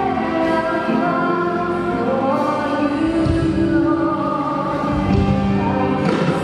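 Worship song: many voices singing long held notes over a backing of instruments.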